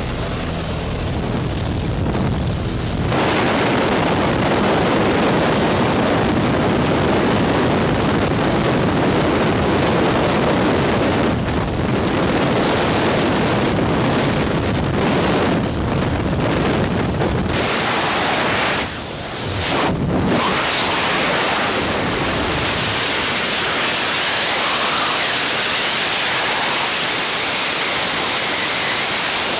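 Loud, steady roar of freefall wind on the microphone, starting about three seconds in and briefly dipping a few times. Before it, the steady hum of the jump plane's engine at the open door.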